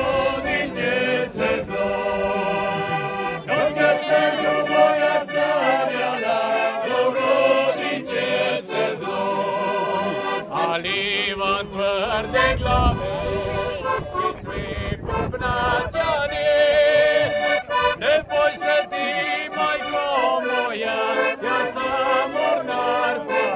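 Button accordion playing a traditional folk tune, with a group of men's voices singing along in places.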